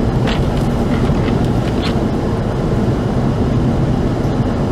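Wind buffeting the microphone in a blizzard: a steady, loud low rumble with a few brief higher hisses.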